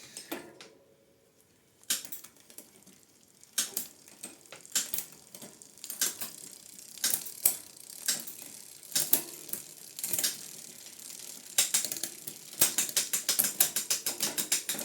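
Bursts of rapid ratcheting clicks from a metal ratchet mechanism, turned in short strokes with pauses between. The clicks are sparse at first and come thick and fast near the end.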